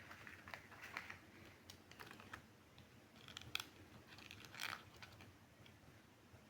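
Faint, scattered clicks and taps with a short rustle near the end, from small plastic toy pieces and packaging being handled.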